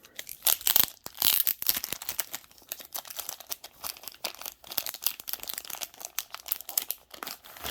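Trading card pack wrapper being torn open and crinkled by hand, an irregular crackling that goes on throughout.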